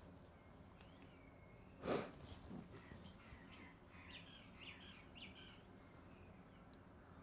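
Quiet backyard air with a few faint, high bird chirps around the middle. One brief noise about two seconds in is the loudest thing heard.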